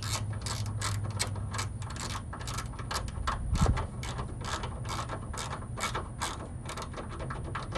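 Hand socket ratchet clicking at an even pace, about four clicks a second, as a fastener is turned, with one dull knock a little past halfway.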